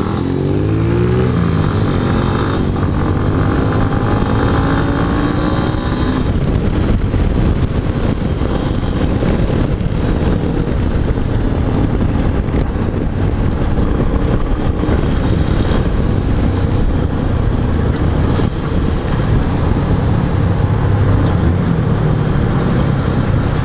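Yamaha XTZ 250 Ténéré's single-cylinder engine accelerating away from a stop, its revs climbing in steps through the first few gear changes over the first six seconds or so. It then runs steadily at speed under heavy wind and road noise on the microphone.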